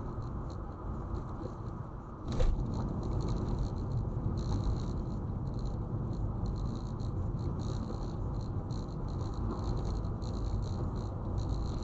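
Car being driven, with a steady low road and tyre rumble and irregular light patter or rattling over it. A sudden thump comes about two seconds in, and the rumble is louder after it.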